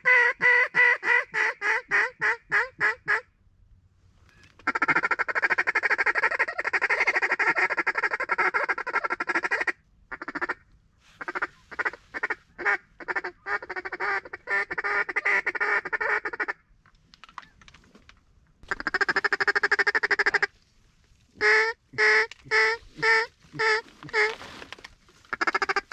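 Mouth-blown duck call worked by a hunter to bring ducks in to the decoys: runs of quick quacks, a long rapid feed-call chatter, then more quack runs with short pauses between.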